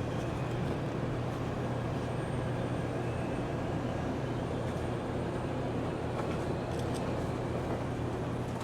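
Steady car cabin noise while driving: a constant low engine and road hum, with a few faint ticks near the end.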